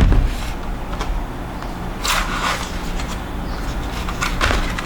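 Ryzen CPU retail packaging being handled and opened: a knock at the start, then brief rustling scrapes about two seconds in and again near the end, over a steady low hum.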